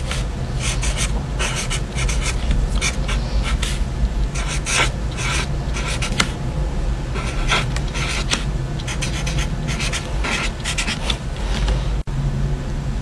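Felt-tip marker scratching across a paper card in quick, irregular writing strokes, over a steady low hum; the writing stops shortly before the end.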